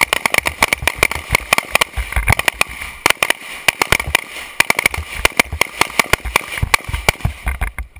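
Rapid, irregular rifle gunfire from an AR-15-pattern Noveske N4 carbine, several shots a second, with other shots overlapping from rifles firing along the same line. The firing stops shortly before the end.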